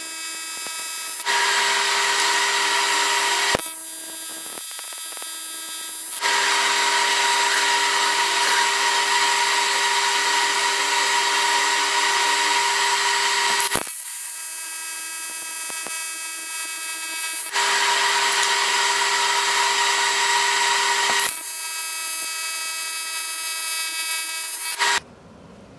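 AC TIG welding arc on aluminum from an HTP Invertig 221, a steady high-pitched buzz. It switches abruptly several times between louder and softer stretches, with a sharp click at two of the changes, and cuts out shortly before the end.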